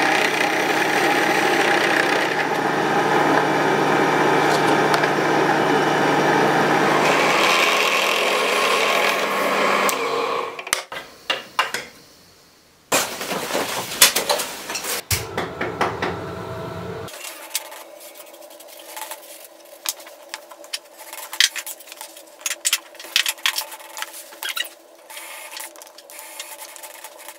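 A drill press runs steadily as it bores into a small wooden part, then stops about ten seconds in. After a short pause, small wooden pieces clatter onto a tabletop. Then a cordless drill with a fine bit whirs quietly as it drills a thin wooden chair leg, with many light clicks.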